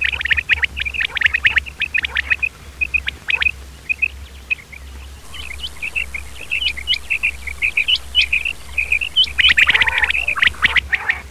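Male quails calling: a dense run of short, high chirps and rapid trills from several birds overlapping, with a louder burst of chatter near the end. A low steady hum runs underneath.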